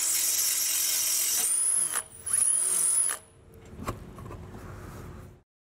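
Power drill with a small bit boring through the front bumper beam. The motor runs at a steady high pitch, stops and restarts about two seconds in, then winds down about three seconds in.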